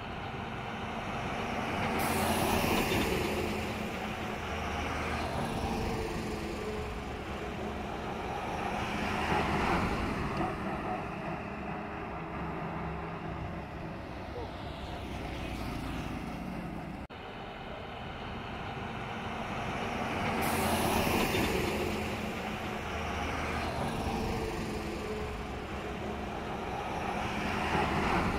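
Heavy road vehicles, trucks and buses, passing close by on a highway, their engine and tyre noise swelling up and fading as each goes past, four times. The sound breaks off suddenly about halfway through.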